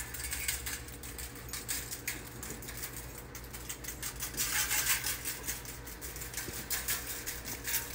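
Pepper mill grinding black pepper over a raw pork roast: a dense run of small crackling clicks, busiest about four to five seconds in and again near the end, over a faint steady hum.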